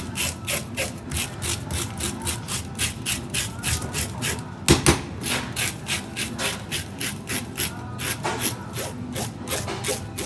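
A metal fish scaler rasping the scales off a saithe (coley) in quick, regular strokes, about three a second, with one louder knock a little under halfway through.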